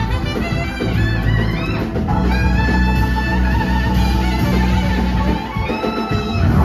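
Live jazz-funk band playing: a saxophone solo of quick runs that settles into a long held note, over electric bass, drums and keyboard.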